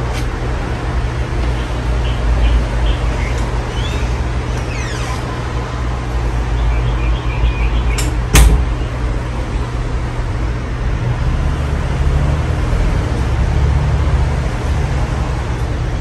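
53-inch Casablanca Spirit of Saturn ceiling fan running, with a steady low motor hum and air noise. A single sharp click sounds about eight seconds in.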